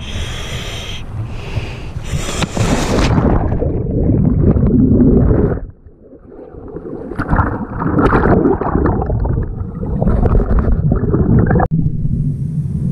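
A diver with a camera going over the side of a boat into the water. There is handling and rushing noise, then bubbling and gurgling water around the microphone as it goes under, with a muffled underwater rush that drops off suddenly near the end.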